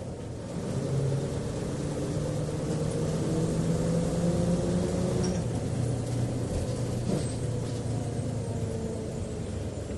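Bus engine heard from inside the bus as it drives: its hum grows louder about a second in and rises gently in pitch, then drops to a lower pitch about halfway through, over a steady rumble of the cabin.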